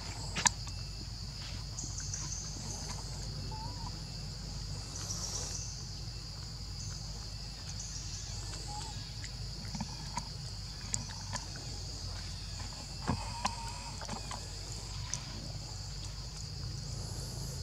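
Steady high-pitched drone of insects in forest undergrowth over a low rumble, with a few faint short chirps and small clicks now and then.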